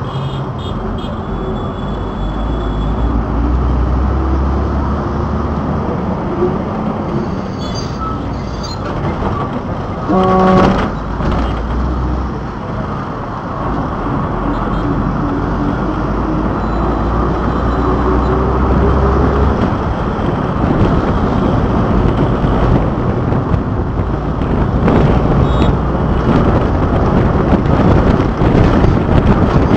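Road traffic noise heard from a moving vehicle: steady engine and tyre noise, with an engine note rising slowly through the middle. A vehicle horn honks once, briefly, about ten seconds in.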